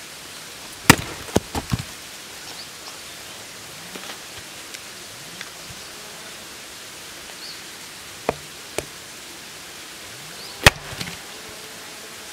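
A STIHL hatchet chopping into and splitting a short log round: a hard strike about a second in, followed by three quicker, lighter knocks, then two strikes a little past the middle and another hard strike near the end.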